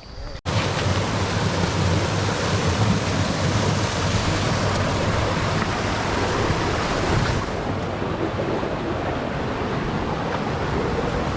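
Steady rush of water from a fast mountain river, a continuous even hiss that turns a little duller about seven seconds in.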